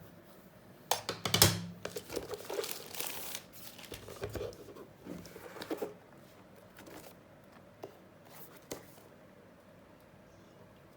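Packaging crinkling and rustling as it is handled, in irregular bursts that are loudest about a second and a half in and die away after about six seconds, leaving a couple of faint ticks.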